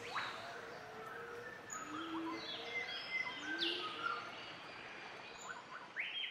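Several rainforest birds calling over a steady hiss of background ambience: sharp rising whistled sweeps, short chirps and a few lower held notes.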